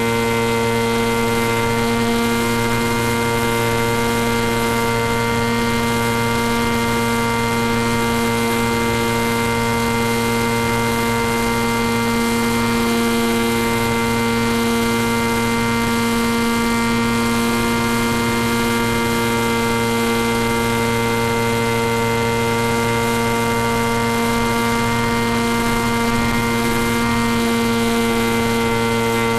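Steady electrical buzz of unchanging pitch over a constant hiss, the interference hum typical of audio carried on an FPV video link.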